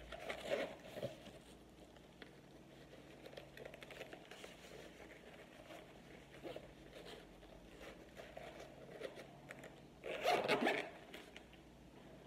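Zipper on a small black fabric pouch being worked open and shut, with faint scratchy handling of the fabric and a louder rustle about ten seconds in.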